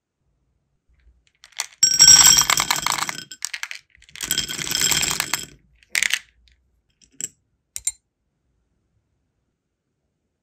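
Sealing wax beads clattering in a glass dish: two rattling bursts of many small hard clicks, each over a second long, then three single clicks.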